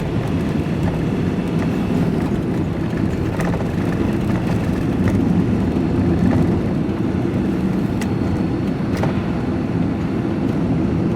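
Steady engine and road rumble of a van heard from inside the cab while driving at a constant speed, with a few faint clicks.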